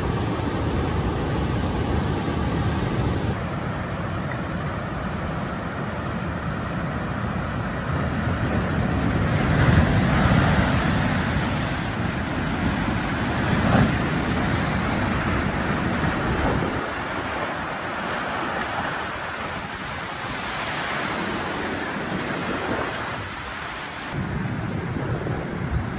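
Tsunami surge: seawater rushing and churning across flooded ground, with wind buffeting the microphone. The rush swells loudest about ten seconds in, then eases and picks up again near the end.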